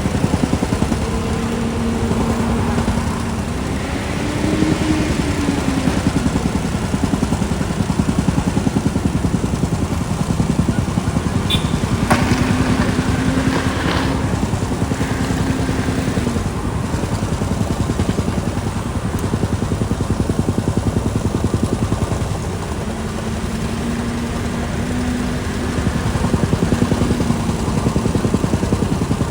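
Diesel engine of a CAT backhoe loader running steadily under work, its pitch rising and falling several times as the revs change. A few sharp metallic clanks come about halfway through.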